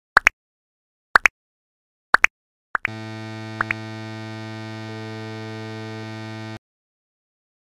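Intro sound effects: quick cartoon pops in pairs, then a steady electronic buzzing tone with many overtones held for nearly four seconds and cut off suddenly, with two tiny rising blips shortly after it begins.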